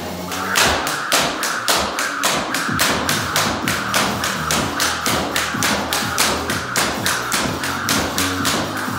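Jump rope slapping the floor in a fast, even rhythm of sharp clicks: double-unders starting about half a second in. Background music plays underneath.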